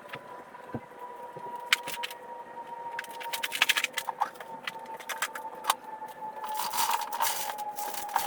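Clinking, clicking and scraping of hard objects being handled, growing busier from a few seconds in, over a faint steady whine that slowly sinks in pitch.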